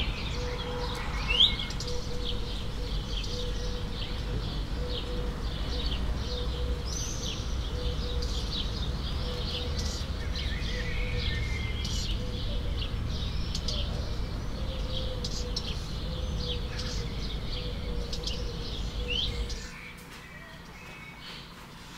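Garden ambience of small birds chirping and twittering, with one louder rising call about a second and a half in, over a low rumble and a faint steady hum. Near the end the ambience cuts off to quieter room tone.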